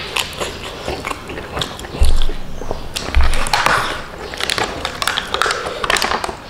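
Close-miked eating sounds: chewing with small clicks and smacks, and two dull thumps about two and three seconds in. Then the crinkle and scrape of an aluminium foil takeaway tray being picked up and tipped to pour out its contents.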